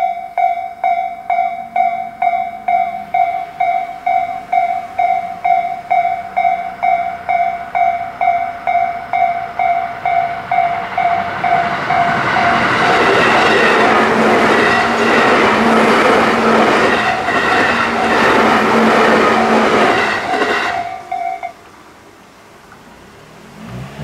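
Japanese level-crossing electronic warning bell ringing about twice a second. About halfway through, a Tobu 10000 series electric train passes, its wheels clattering over the rail joints for about eight seconds and nearly drowning the bell. The bell cuts off soon after the train clears.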